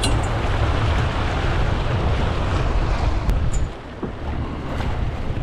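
Wind buffeting the microphone over the rushing water of a moving boat's wake. The noise drops somewhat a little before four seconds in.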